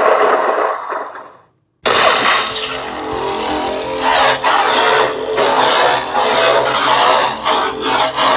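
Lightsaber sound from a CFX soundboard through a 28 mm speaker, playing a K-Sith sound font: a font-change sound fades out, then about two seconds in the blade ignites suddenly into a loud, crackling, unstable hum that swells and dips as the saber is moved.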